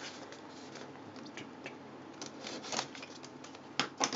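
Cardboard packaging being handled and opened: light scraping and rustling of the box, with a few sharper taps about three-quarters of the way in and near the end.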